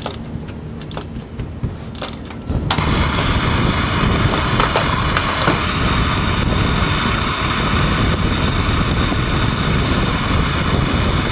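A few light clicks, then, about two and a half seconds in, a loud steady engine-like running noise starts abruptly and holds evenly.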